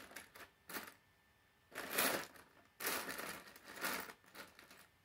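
Plastic K'nex rods and connectors clicking and rattling as they are handled and fitted together, in several short spells, the loudest about two seconds in.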